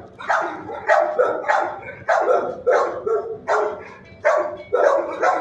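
Dogs barking over and over in a shelter kennel block, about two barks a second.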